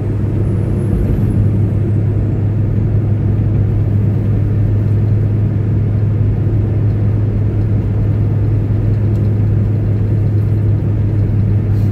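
Semi-truck's engine and road noise heard from inside the cab while cruising at highway speed: a steady low drone.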